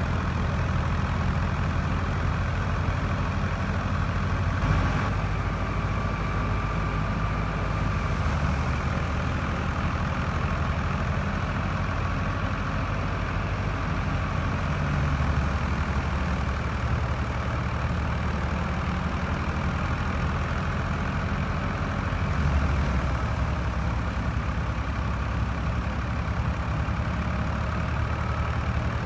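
NH Ghazi tractor's diesel engine running steadily under load, driving a wheat thresher, with the thresher's drum running alongside. The engine note shifts a few times as sheaves go in; the engine is labouring on damp wheat and puffing black smoke.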